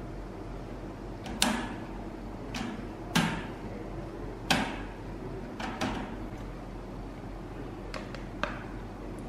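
Stand fan's wire guard clanking and clicking as it is handled and fitted together: a series of sharp metallic knocks with a brief ring, the three loudest in the first half, then lighter clicks near the end.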